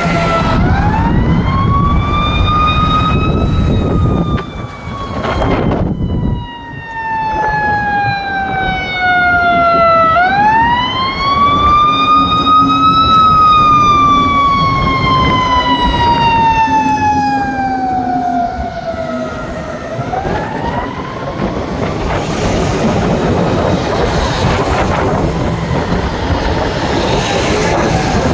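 Fire engine siren wailing: it winds up over a few seconds and then slowly falls away, three times over, and the third rise, about twenty seconds in, fades out under steady road noise.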